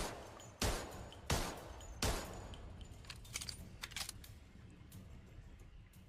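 Colt M1911 pistol firing four shots about two-thirds of a second apart, each with a short trailing echo. A few sharp, quieter metallic clicks and clinks follow between three and four seconds in.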